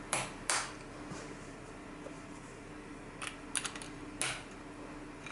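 A few light clicks and taps of plastic circuit-kit connectors being fitted onto the baseboard: two near the start, then a small cluster of clicks about three to four seconds in.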